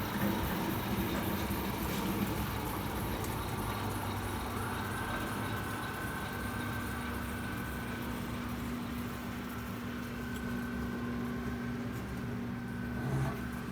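Super Brush 36 single-brush sanding machine running steadily, a constant motor hum with a steady higher whine joining about a third of the way in.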